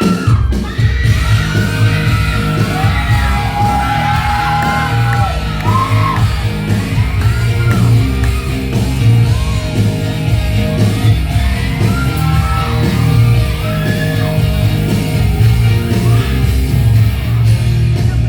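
Loud amplified pop music with a heavy, steady bass and a sung vocal line, with shouts and whoops from the audience over it.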